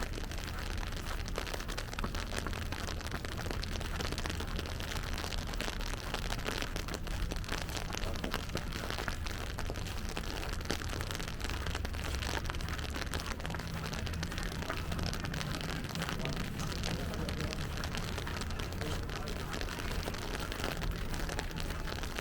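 Rain falling and pattering on wet city surfaces, a steady hiss full of fine drop ticks, over a steady low rumble.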